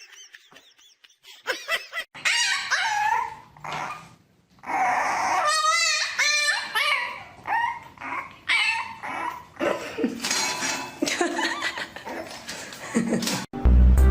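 A dog vocalizing in a string of short calls that bend up and down in pitch, with a warbling call about six seconds in.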